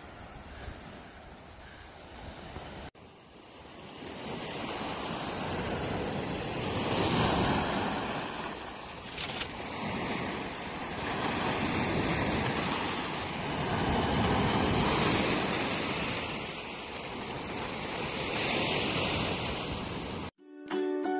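Sea waves breaking and washing in, the noise swelling and fading every few seconds.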